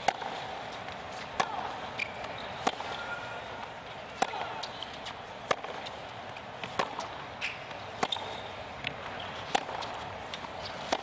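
Tennis ball bounced on a hard court before a serve: a sharp bounce about every 1.3 seconds, eight or so in all, over a steady hiss of crowd and wind.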